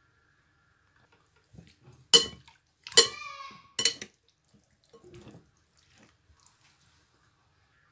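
Metal spoon clinking against a glass mixing bowl while stirring wet marinated chicken pieces: three sharp clinks, the middle one ringing briefly, then softer scraping and squishing of the meat.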